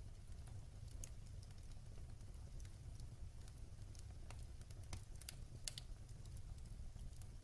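Wood fire burning in a fireplace: a faint, steady low rumble of the flames with scattered sharp crackles and pops from the burning logs, several of them in quick pairs around the middle.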